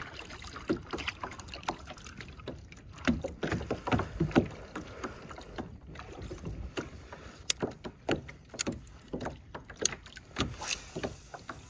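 A plastic sit-on-top kayak being paddled: paddle blades dipping and splashing, water dripping off them, with many small irregular clicks and knocks.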